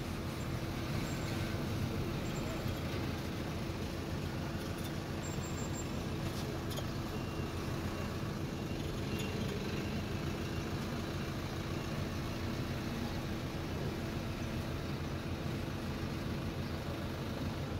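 Steady outdoor background noise with a low rumble and a faint steady hum underneath, unbroken throughout.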